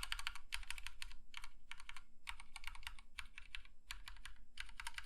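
Akko 3061 60% mechanical keyboard with Cherry MX Red linear switches being typed on quickly: rapid runs of keystrokes broken by a few brief pauses.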